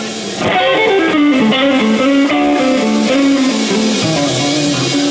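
Live band playing, led by an electric guitar picking a quick run of single notes that step up and down in pitch, with the rest of the band underneath.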